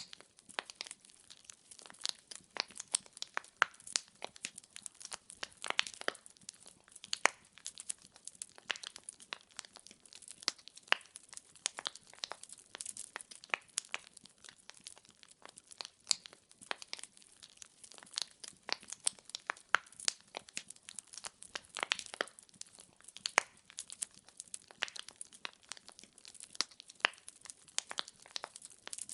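Wood fire burning in a fireplace, logs crackling and popping in a dense, irregular patter of sharp snaps over a soft hiss.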